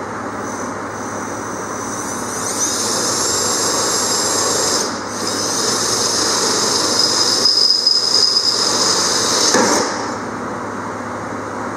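Cordless drill boring a hole through an aluminum jon boat transom, the bit giving a high, steady whine in the metal. It starts about two and a half seconds in, breaks off briefly near five seconds, and stops about ten seconds in.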